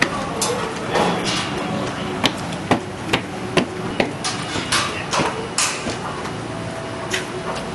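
A string of sharp knocks, about two a second and unevenly spaced, over steady background noise.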